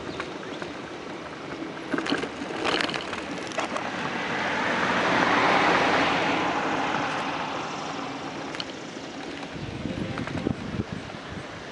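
Wind rushing over the microphone and the rattle of a homemade camera mount while it rides along a sidewalk. A few sharp knocks come about two to three and a half seconds in, and a broad rushing swell builds to its loudest about six seconds in, then fades.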